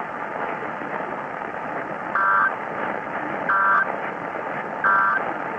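Three short bursts of Emergency Alert System end-of-message data tones (the SAME digital code), each about a third of a second and spaced about a second and a quarter apart, over steady AM radio static; they mark the end of the alert.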